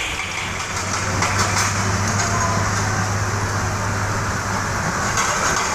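Excavator engine running steadily with a low hum.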